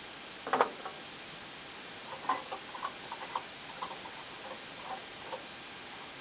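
Flex-head ratchet wrench clicking in short, irregular runs while a bolt is tightened, with one louder clack about half a second in.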